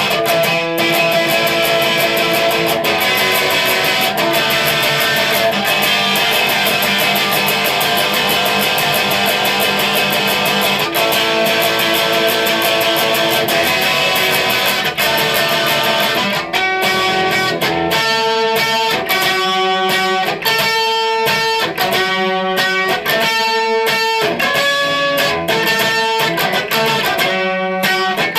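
Electric guitar playing the rhythm part of a rock song: dense, sustained strummed chords for about the first half, then short chopped chords with brief gaps between them.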